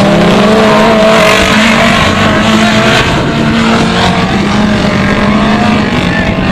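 Autocross race cars running hard, loud engine noise with the revs climbing and dipping as they drive the course; more than one engine pitch can be heard at once.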